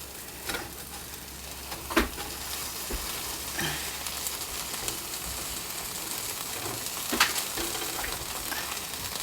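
A folded egg omelette with onions and peppers sizzling steadily in a frying pan, with a few sharp clicks, the loudest about two seconds and seven seconds in.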